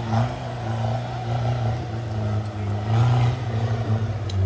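Off-road vehicle engine running at low, fairly steady revs, with a few brief swells in level.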